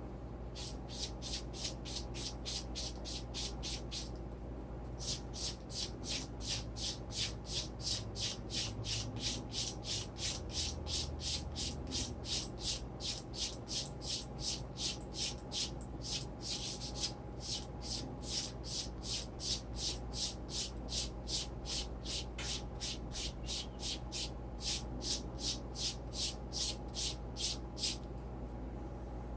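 Sandpaper rubbed back and forth by hand over leather, in even hissing strokes about two to three a second, with a few short pauses. A steady low hum runs underneath.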